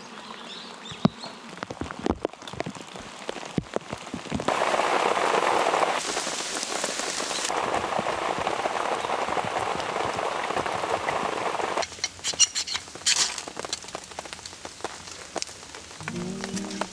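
Rain falling, heard first as scattered individual drops hitting a surface. After about four seconds it changes suddenly to a steady, denser rain hiss, and back to scattered drops past the middle. Music begins near the end.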